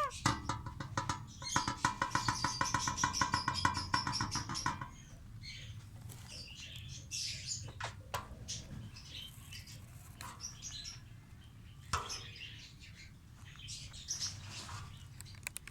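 Small pet parrots chirping and chattering: a loud run of fast repeated calls in the first five seconds, then softer, scattered high chirps.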